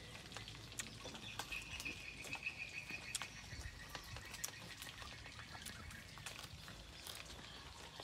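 Faint rural outdoor background with scattered soft clicks, and a thin high call lasting about two seconds, starting about a second in.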